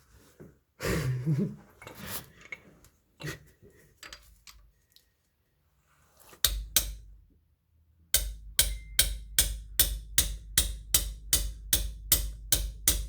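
A hammer striking a socket on an extension bar, ramming bread into the bore to drive out a spigot bearing. A few scattered knocks come first, then steady sharp hammer blows at about two and a half a second, each with a low thud, start about eight seconds in.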